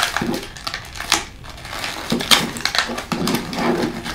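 A small cardboard blind box being pulled open by hand and a paper wrapper unfolded: irregular crinkling and rustling with sharp crackles.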